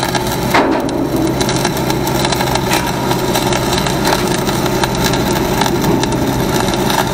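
Welding arc crackling steadily, over the low hum of a running engine.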